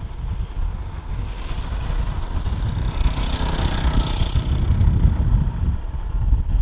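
Jet airliner passing by: a broad jet roar that swells over the first few seconds, peaks around the middle and fades away, over steady wind rumble on the microphone.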